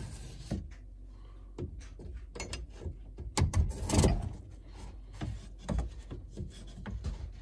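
New metal ball-bearing drawer slide being handled and set into place against a wooden RV cabinet side: a series of metal clicks and knocks, the busiest run about halfway through.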